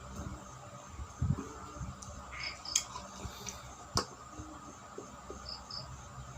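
Eating sounds: soft chewing and mouth smacks, with a sharp click about four seconds in. A cricket chirps in short pairs every few seconds.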